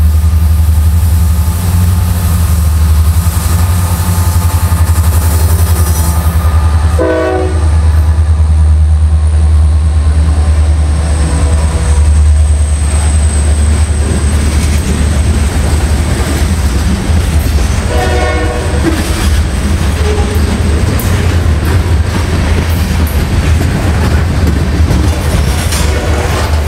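Norfolk Southern freight train H70, led by SD60E diesel locomotives, passing close by with a heavy, steady low diesel rumble, then covered hopper cars rolling past with wheel clatter. Two brief horn-like blasts sound, one about a quarter of the way in and another about two-thirds of the way in.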